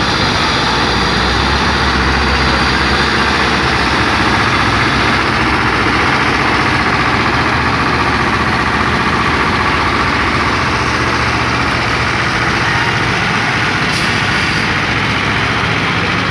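Heavy diesel engine of road construction machinery running steadily and loudly, with a brief high hiss near the end.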